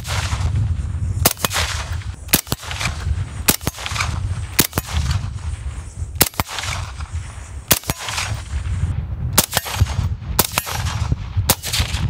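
Suppressed IWI X95 Tavor rifle in 5.56 firing about nine single shots, roughly one a second, through an OSS HX-QD 556 Ti suppressor. Each shot is a sharp report with a brief echo after it.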